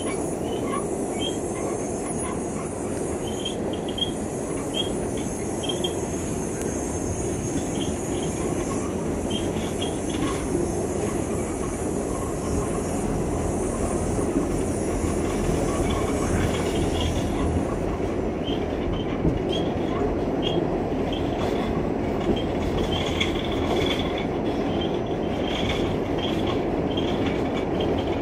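Interior of a New York City Subway R46 car in motion: the steady rumble of steel wheels on the rails, with short high squeals from the wheels coming and going throughout.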